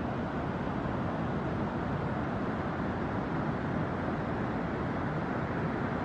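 Heavy ocean surf breaking along the shore: a steady, even wash of noise with no single crash standing out.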